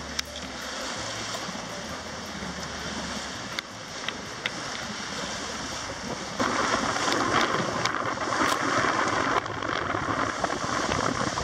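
Wind on the microphone and water rushing past the hull of a sailing yacht under sail, louder for a few seconds a little past the middle, with a few faint clicks.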